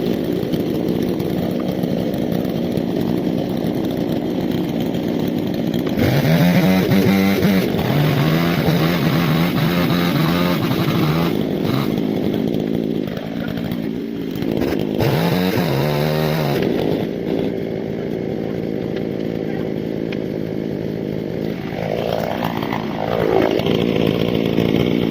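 Chainsaw engine running continuously, revved up sharply several times as it cuts.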